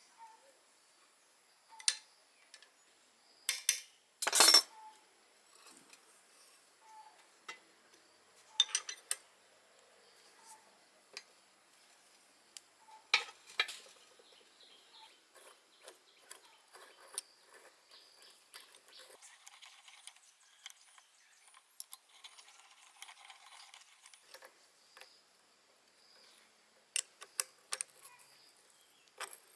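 Scattered metallic clinks and clicks from hand tools and small metal parts being handled, with quiet gaps between; the loudest comes a little over four seconds in.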